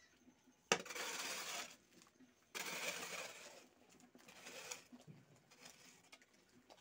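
A hoe blade scraping and shoving wet mud and gravel along a foundation trench, in two strokes of about a second each and a shorter one near five seconds in.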